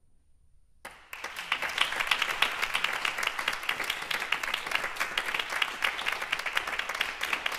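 Audience applause breaks out about a second in, after a brief hush, and goes on as steady, dense clapping from many hands.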